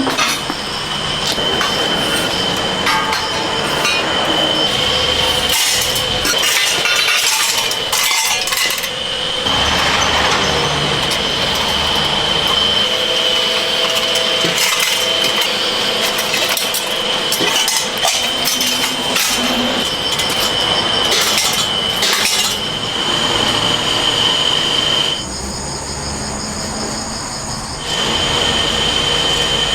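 A steady high whine from a workshop machine, with metal clinks and knocks. The whine cuts out for about three seconds near the end, then starts again.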